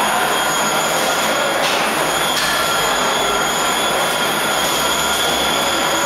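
Steady mechanical din of factory machinery running: a dense hiss with several steady high whining tones.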